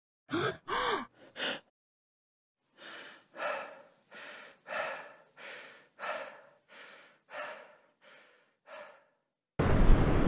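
A person gives two short voiced gasps and a lighter catch of breath, then breathes quickly in and out, about ten breaths. Near the end a loud rush of wind noise with a deep rumble starts suddenly.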